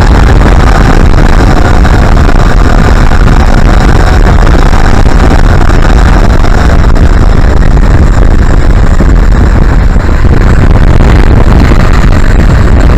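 Loud wind noise buffeting the onboard microphone of a small twin-propeller electric RC plane in flight, with a faint thin whine from its motors and propellers behind it.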